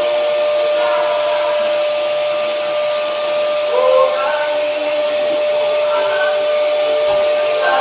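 Electric HVLP paint sprayer running while spraying: the floor-standing turbine blows a steady whine with an airy hiss through the hose and gun.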